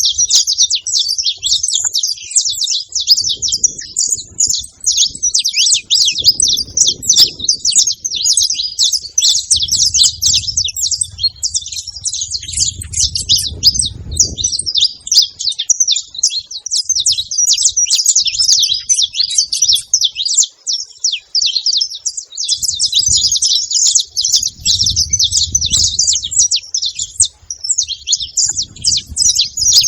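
Saffron finches chirping: a dense, unbroken stream of quick, high, overlapping chirps, with a low rumble now and then underneath.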